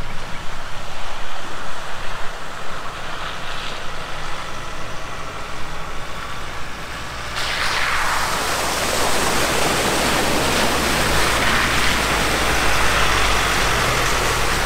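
Ford Ranger Raptor towing a camper trailer driving along a wet dirt track toward and past, engine and tyre noise growing louder. About halfway through a sudden hiss of tyres through water and mud comes in as it crosses the puddle, with the engine's low drone strongest as it passes near the end.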